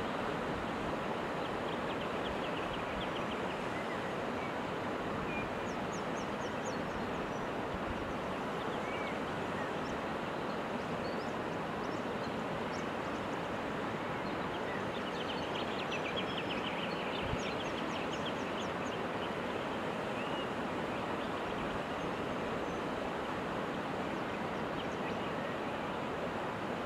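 Steady rushing outdoor background noise, with faint bursts of rapid, high bird chirps now and then, the longest run about two thirds of the way through.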